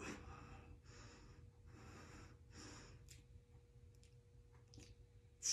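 A woman breathing under the strain of holding a forearm plank: four soft, noisy breaths in the first three seconds, then quieter, with a few faint clicks.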